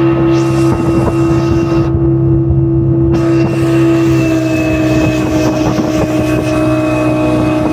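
Motorboat engine running at a steady speed with a constant hum, its pitch easing slightly lower about halfway through.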